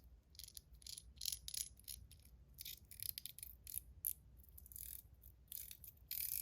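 Small metal parts of a titanium Top C fidget clicking and rattling lightly in the hands as it is put back together: scattered faint taps, with a denser clatter starting near the end.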